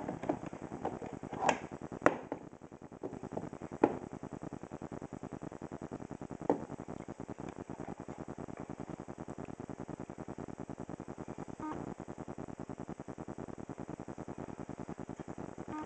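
Camera autofocus motor hunting: a steady, rapid ticking buzz. A few sharp clicks and knocks stand out in the first four seconds and once more about six and a half seconds in.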